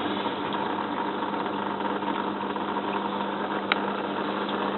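Washing machine drain pump running with a steady hum over the sound of water, its pump judged to sound alright. There is a single light click near the end.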